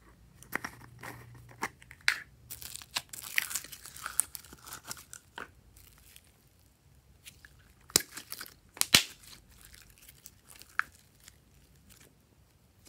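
Glossy slime handled in bare hands, pulled from its plastic jar and squeezed: irregular sticky crackling and tearing sounds, with scattered sharp pops, the two loudest a little past the middle.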